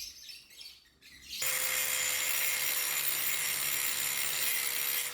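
Power grinder running steadily against the edge of a motorcycle brake disc, trimming it so it clears the caliper. It starts abruptly about a second and a half in, a steady grinding hiss over a constant motor whine.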